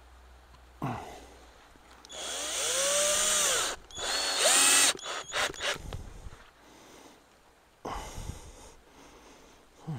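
Power drill driving screws into a small wooden board in several runs: a long one about two seconds in with the motor's pitch rising and falling, a shorter one at about four seconds, a few quick blips, and a brief run near eight seconds. A single knock comes just before the first run.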